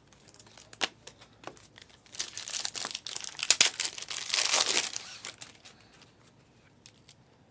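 A trading card pack's foil wrapper being torn open and crinkled, densest and loudest from about two to five seconds in, with a few light clicks before it.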